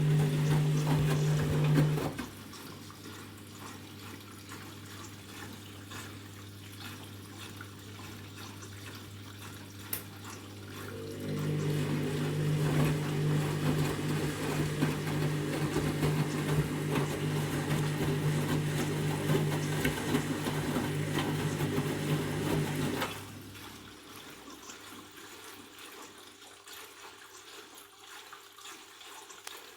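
Candy Grand'O Vita washing machine taking in water during a fill: a steady hum over rushing water that cuts off about two seconds in, starts again about eleven seconds in and stops about twenty-three seconds in, leaving quieter water noise between and after.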